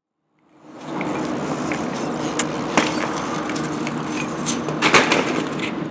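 Wheels rolling over pavement with a steady rumble, broken by a few sharp clacks, the loudest near the end.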